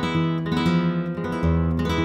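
A 1983 Conde Hermanos flamenco guitar, a blanca with cypress back and sides, being played. Plucked notes ring over one another, and a deep bass note comes in about two-thirds of the way through.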